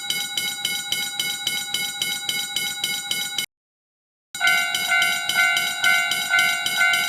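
Japanese railroad crossing warning bells ringing their repeated 'kan-kan' dings: a higher-pitched bell dings rapidly and cuts off about three and a half seconds in, then after a short gap a lower-pitched bell dings more slowly and louder.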